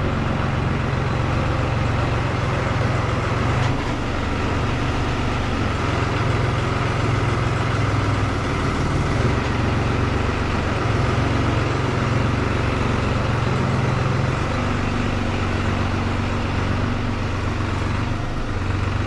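Engine of farm machinery running steadily, a continuous low drone with mechanical noise over it.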